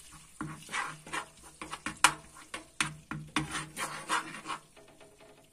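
Metal spoon scraping and clicking against a small nonstick pan in quick repeated strokes, stirring dried mint into hot oil, with one sharper click about two seconds in.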